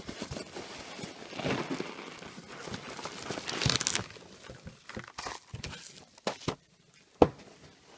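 Parcel packaging being handled and opened: rustling, crinkling and tearing in several swells, with scattered clicks and one sharp knock about seven seconds in.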